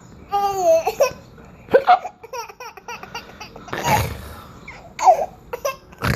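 A nine-month-old baby giggling and laughing in short bursts, broken by a couple of sharp, brief hiccups and a breathy burst midway.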